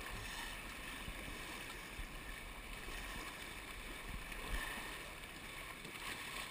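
Steady rush of river water around a raft, with a few short low thumps, the strongest about four and a half seconds in.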